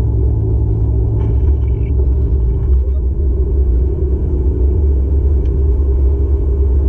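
Steady low road and engine rumble inside a moving car's cabin, with a brief higher-pitched sound about a second in.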